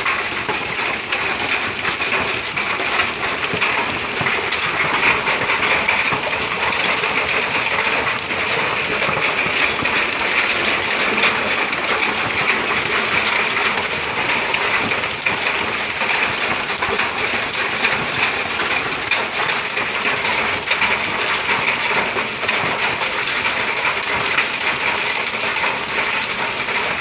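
Heavy hail falling: a dense, steady clatter of countless hailstones striking the gravel ground and the sheds' metal door and roof.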